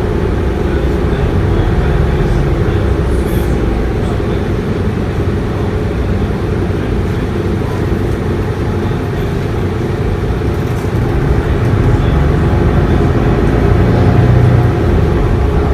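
Inside a Mercedes-Benz Citaro city bus on the move: the steady drone of its diesel engine and road noise through the cabin. It grows louder about eleven seconds in, then drops back suddenly near the end.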